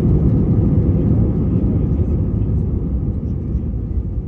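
Cabin noise of an Airbus A320 with CFM56-5B engines rolling on the ground after landing: a deep, steady rumble that slowly fades as the aircraft slows.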